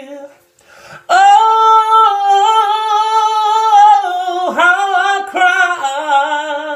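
A young man singing a cappella without words. After a short breath, a loud, high note with vibrato is held from about a second in; past the middle it dips and breaks into sliding vocal runs on a soul ballad.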